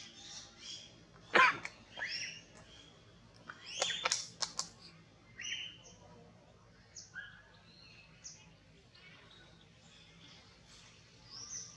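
Short, high chirping calls, scattered and mostly falling in pitch. A few sharper, louder calls come about a second and a half and four seconds in.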